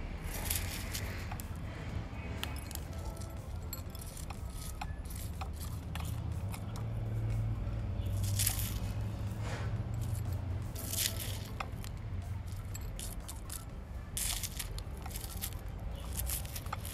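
Plastic scoop scraping and stirring gritty succulent soil mix in a ceramic pot: scattered short scratches and small clicks of grit, over a low steady hum that swells for a few seconds midway.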